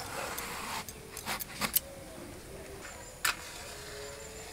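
Brinjal being sliced into rounds on a bonti blade: a short scraping hiss of the cut at the start, then a few sharp clicks as blade and slices knock against steel.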